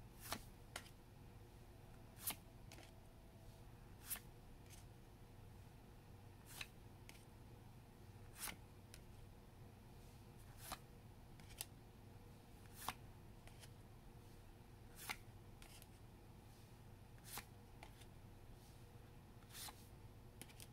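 Trading cards being handled and flipped through one at a time: a faint, sharp click roughly every two seconds, over a low steady hum.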